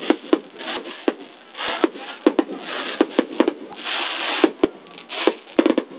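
Fireworks going off: about twenty sharp bangs at uneven intervals, with stretches of hiss between them. The loudest bang comes about four and a half seconds in.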